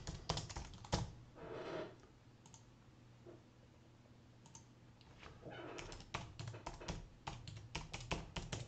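Typing on a computer keyboard: a short run of keystrokes about the first second, a pause, then a longer, faster run of keystrokes through the second half.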